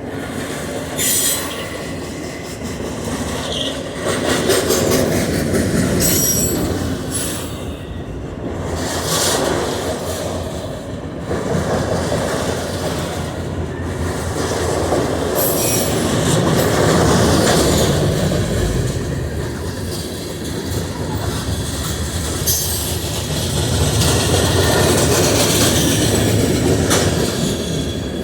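A train rolling past at close range: a steady rumble of wheels on rail that swells and eases as the cars go by, with repeated clicks and clanks from the wheels over the rail joints.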